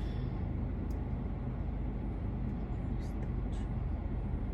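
Steady low rumble of a car's idling engine heard from inside the cabin.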